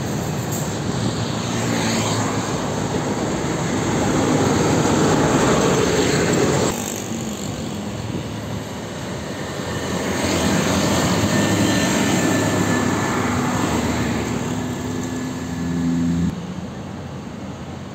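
Loaded diesel dump trucks driving past one after another, engines running with tyre and road noise that swells as each one goes by. The sound drops suddenly twice, about a third of the way in and near the end.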